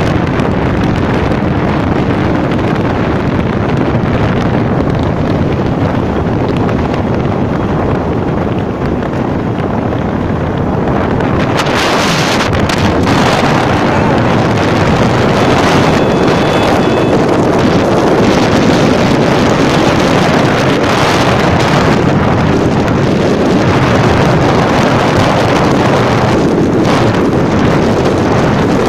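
Sandstorm wind buffeting the microphone of a moving motorcycle, a dense continuous rush that turns harsher and hissier about twelve seconds in.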